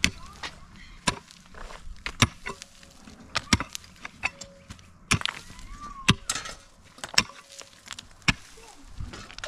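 Repeated sharp striking blows at an uneven pace of roughly one a second, with two in quick succession about three and a half seconds in.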